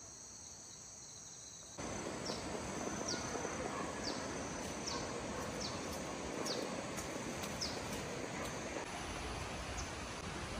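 Tropical forest ambience: a steady high-pitched insect drone. From about two seconds in it sits over a broader hiss, with a short, falling chirp repeating roughly once a second.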